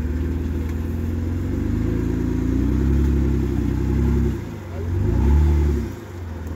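Off-road 4x4's engine working at low speed, the revs rising a couple of seconds in and held, then two short throttle bursts with sharp drops between them near the end.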